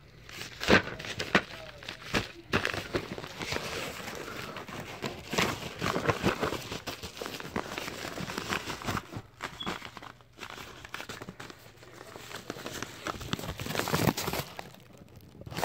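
A cardboard shipping box being handled and opened, with packing material rustling and crinkling and scattered knocks and scrapes.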